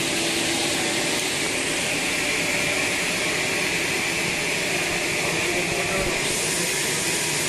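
Band sawmill running with a steady, hissing noise, which turns brighter about six seconds in.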